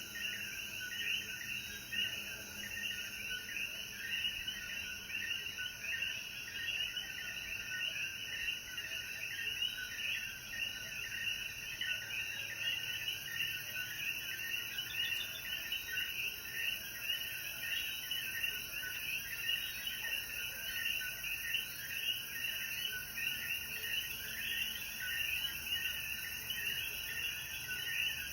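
Night chorus of Puerto Rican coquí frogs: many overlapping short two-note calls, repeating without a break over a steady high hiss.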